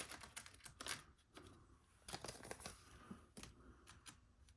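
Faint scattered clicks and light rustling of small parts being handled: tiny ball bearings from an RC car bearing kit being picked up and sorted by hand.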